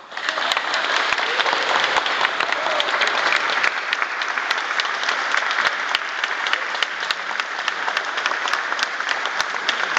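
Audience applauding, with sharp, loud claps from one person close by standing out over the steady clapping of the rest.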